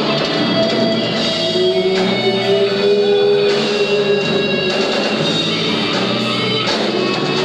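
A metal band playing live: electric guitar and drum kit, with a long held note in the middle.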